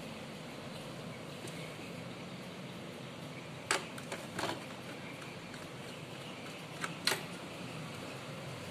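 A few short, sharp clicks and taps of plastic and metal parts being handled as the hard drive is taken out of an all-in-one PC, over a steady background hum. Two clicks come a little before the middle and two close together near the end.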